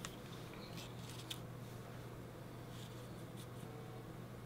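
Faint rustles and a few light taps of a punched paper border strip being handled and laid down flat on a scrapbook page.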